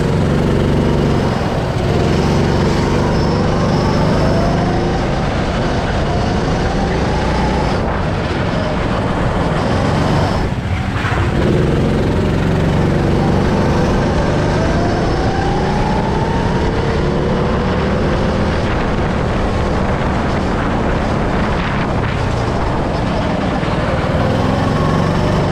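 Go-kart engine heard from on board under racing load, its pitch climbing twice as it accelerates down the straights and dropping back for the corners, over steady wind and track noise.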